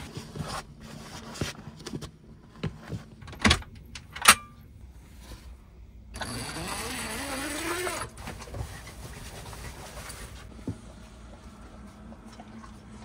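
Clicks and knocks of someone moving about inside a camper van and at its clothes closet, with two sharp knocks a little under a second apart about three and a half seconds in. About six seconds in comes a two-second whir whose pitch rises steadily, then only faint handling sounds.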